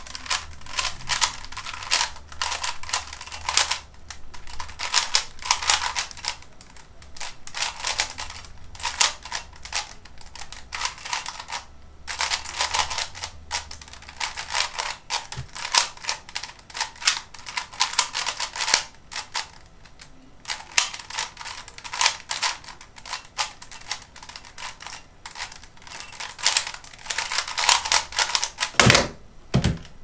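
Type C DIY 3x3 speedcube being turned fast in a speedsolve: rapid bursts of clacking layer turns, with short pauses between bursts. Near the end there are a couple of low thumps as the hands come down on the timer pad to stop it.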